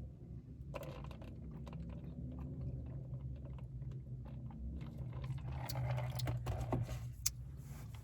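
A person eating close to the microphone: chewing and biting, with many small mouth clicks and crunches and a denser stretch of crunching about six seconds in, over a steady low hum.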